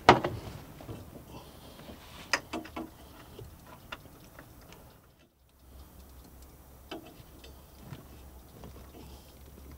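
Scattered light clicks and knocks of a new spin-on oil filter being screwed onto an engine's filter mount by hand, with a sharper knock right at the start and two more about two seconds in.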